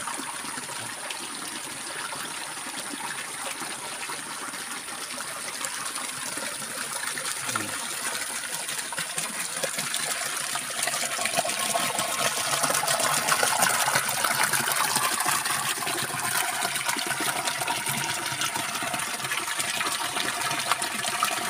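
Water gushing from a pipe outlet into a concrete tank, a steady splashing rush that grows louder about ten seconds in.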